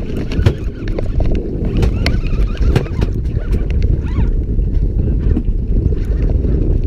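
Wind buffeting the microphone aboard a fishing boat at sea: a steady, heavy low rumble with scattered small knocks and clicks.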